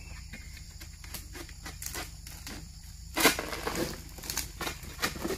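Long-pole harvesting sickle working at the crown of an oil palm, pulling and cutting at the frond and fruit-bunch stalks: scattered rustles and clicks, with a louder rasping burst about three seconds in.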